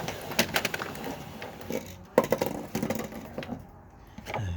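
Irregular clicks, knocks and rattles of a window air conditioner's casing being handled and worked on, with a louder knock a little past two seconds in.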